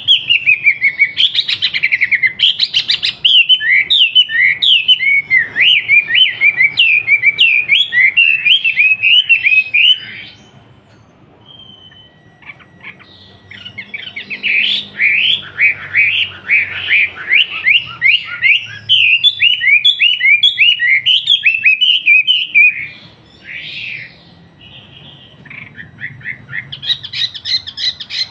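Wambi bird singing a long, rapid chatter of sharp, downward-sweeping whistled notes, several a second, in two long runs with a pause about ten seconds in and a fresh phrase near the end.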